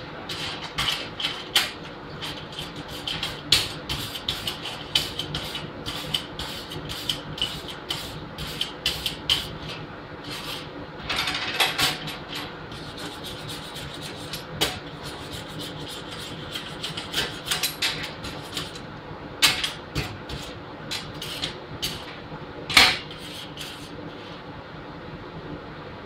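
Wire brush scrubbing a weld on a galvanized steel garage door hinge: irregular runs of scratchy strokes with sharp metallic clicks, over a steady low hum.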